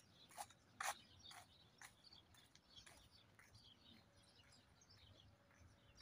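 Faint small bird chirps, with a few soft footsteps on pavement about twice a second during the first two seconds.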